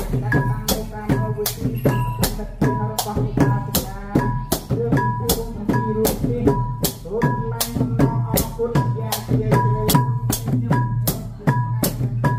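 Khmer chhay-yam ensemble playing: drums and small metal percussion beat a fast, steady rhythm, with a short ringing tone on the beats.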